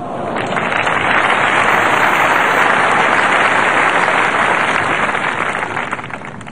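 Crowd applauding at the end of a tennis point, swelling within the first second and fading away near the end.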